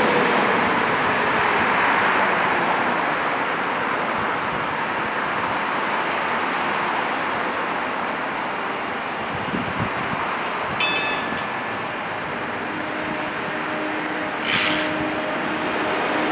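Tatra trams running past and pulling in along street track: a steady rolling rumble, with a falling motor whine at the start. A short ringing clang comes about two-thirds through, and a brief hiss follows a few seconds later.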